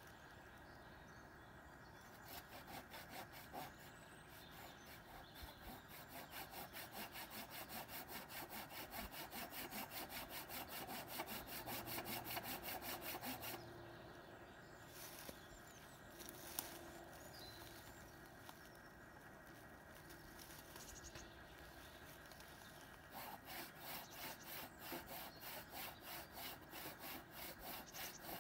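Hand saw cutting through a branch of a fallen tree in quick back-and-forth strokes. The sawing stops for several seconds midway, then starts again.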